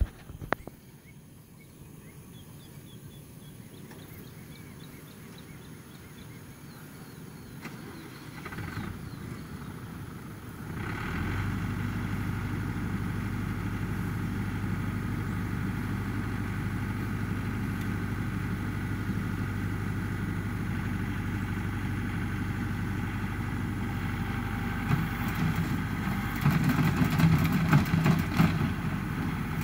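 A compact tractor's engine starts about ten seconds in and then runs steadily. Near the end it gets louder and rougher.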